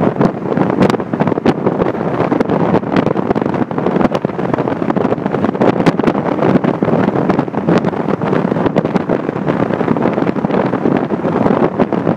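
Car driving over a badly broken, potholed road, heard from inside the cabin: steady rumbling tyre and road noise with frequent sharp knocks and rattles as the car jolts over the holes in the surface.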